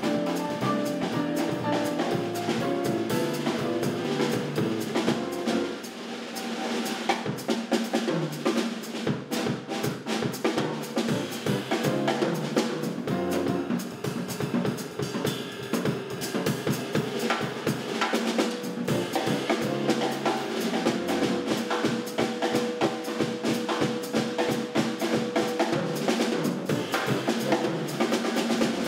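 Live jazz from a small band: electric bass and a Tama drum kit. The drumming grows denser about six seconds in, with fast snare and cymbal strokes over the continuing bass.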